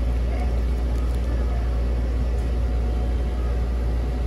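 Steady low hum that does not change in level or pitch.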